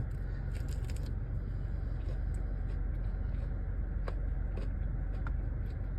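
Steady low rumble of a car interior with the engine running, with a few faint clicks about four and five seconds in.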